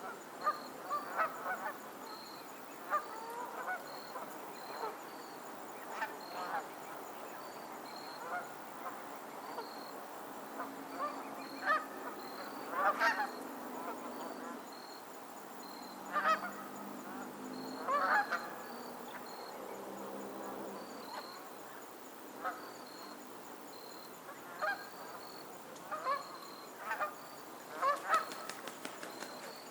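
A flock of geese honking on and off, with short honks scattered throughout, several calls bunched together at times.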